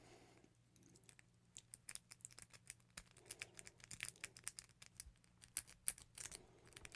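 Faint, rapid, irregular clicking and scratching of a lock pick and tension wrench working the pins of a Master Lock padlock. The clicks grow busier about a second and a half in.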